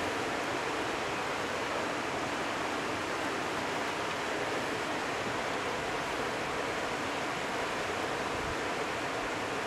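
Steady, even rushing noise that does not change, like running water.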